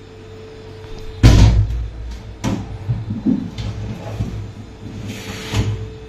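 Glass refrigerator shelf being handled and fitted inside the fridge: one loud knock about a second in, then several lighter knocks and rattles.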